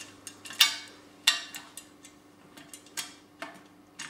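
A steel nut and washer clicking and clinking against a satellite dish's metal bracket as they are threaded onto a bolt by hand, with a handful of sharp, irregular clicks.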